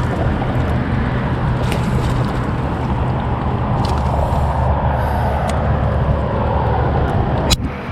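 Steady low rumble of vehicle traffic on the causeway, with one sharp click near the end.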